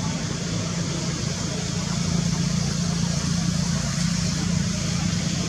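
Steady low hum under a constant hiss, a little louder from about two seconds in.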